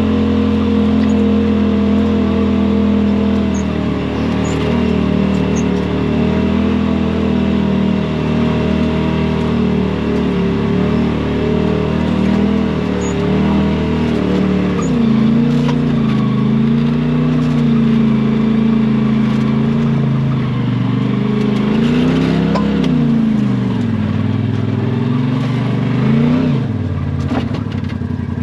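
Side-by-side UTV engine running steadily on a trail. About halfway through, the revs drop. Near the end, the engine revs up and down twice, with a few light clicks.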